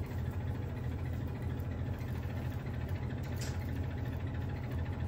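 A steady low mechanical hum, unchanging throughout.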